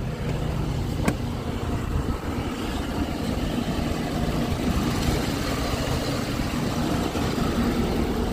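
Ford F-250 pickup engine idling with a steady low hum, under a broad rush of road noise that swells and fades in the middle. A single short click about a second in.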